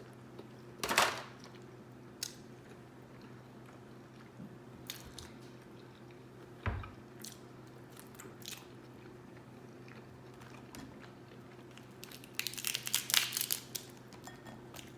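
Close-miked eating of seafood-boil food: scattered sharp crunches and bites, one of the loudest about a second in. Near the end comes a dense run of quick chewing and smacking sounds.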